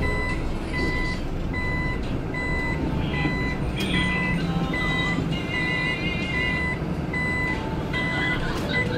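A city bus's warning buzzer beeping over and over, a short steady beep a little more than once a second, over the low hum of the bus driving. It is the buzzer that sounds with the bus's turn signal as it moves across to the right.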